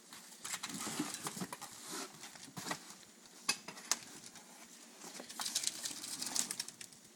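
Packaging rustling and crinkling, with scattered light clicks and knocks, as bicycle parts are handled and lifted out of a shipping box.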